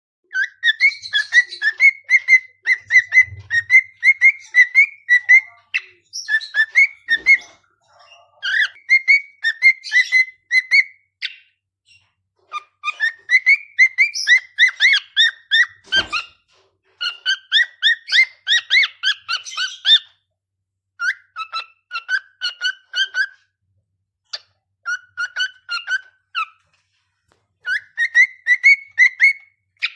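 Cockatiel singing: quick runs of short whistled chirps, several notes a second, in phrases of a few seconds separated by brief pauses.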